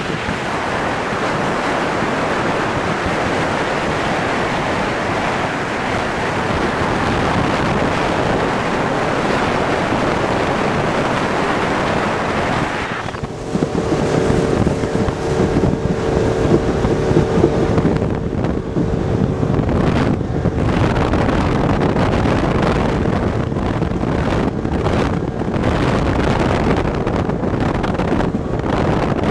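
Motorboat under way: wind buffeting the microphone over the rush of water along the hull. The sound dips briefly about halfway through, after which a steady engine hum comes through for a few seconds.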